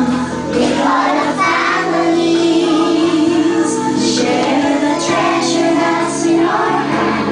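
A group of young kindergarten children singing a song together in chorus.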